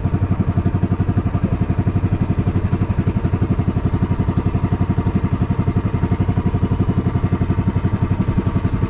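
Small engine of a motorized outrigger fishing boat running steadily under way, a fast, even chugging with no change in speed.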